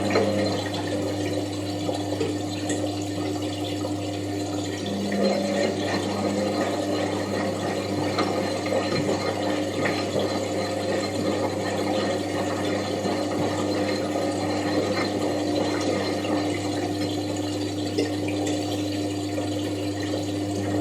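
Washing machine running: a steady low hum with water noise over it. A faint tone drops out briefly around a quarter of the way in.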